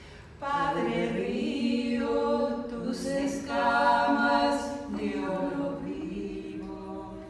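A woman singing unaccompanied, in long held notes that begin about half a second in and grow quieter near the end.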